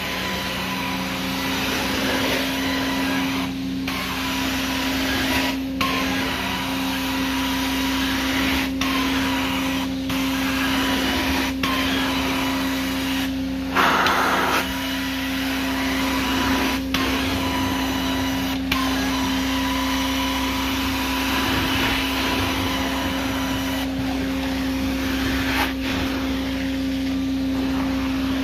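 Carpet-cleaning extraction wand spraying and sucking water from carpet, driven by a Profire extraction machine running on high speed: a steady suction rush over a constant hum, broken by short dips every few seconds between wand strokes.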